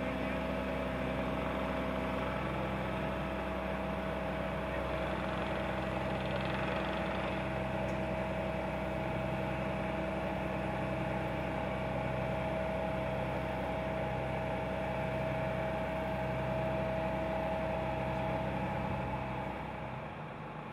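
Mobile crane's diesel engine running steadily under load, with a steady high whine over the low engine hum. It drops away about a second before the end.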